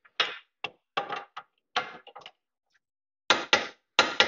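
Ratchet-head torque wrench tightening a brake caliper bolt: a series of short, sharp metallic clicks in uneven bunches, with a pause of about a second just past halfway before more clicks.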